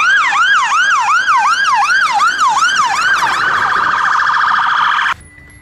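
Fire engine siren sounding a yelp: quick rising-and-falling sweeps, about three a second. About three and a half seconds in it changes to a much faster pulsing warble, then cuts off suddenly about five seconds in.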